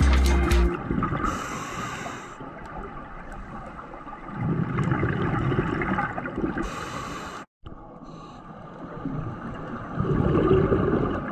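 Scuba diver breathing through a regulator underwater: hissing inhalations alternating with gurgling rushes of exhaled bubbles, two breaths.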